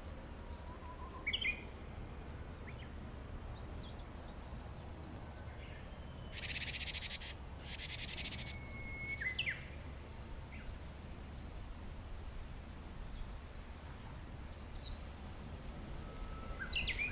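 Small birds calling: scattered short chirps and whistles, with two buzzy, rasping calls about six and a half and eight seconds in, over a steady low background hum.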